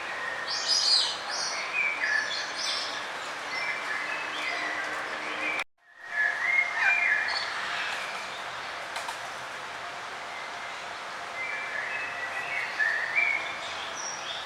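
Several songbirds chirping and whistling in short phrases over a steady background hiss, with the loudest calls about a second in and just after the halfway point. The sound cuts out completely for a fraction of a second a little before halfway.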